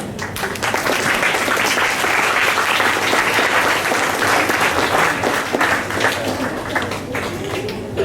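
An audience applauding: a dense patter of many hands clapping that builds about half a second in, holds steady and tapers off near the end.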